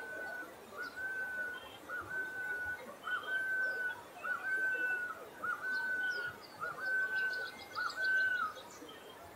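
Golden-headed quetzal singing: about eight clear whistled phrases, each a short rising note running into a longer level whistle, repeated roughly once a second. Faint chirps and a brief trill from other birds sound higher up.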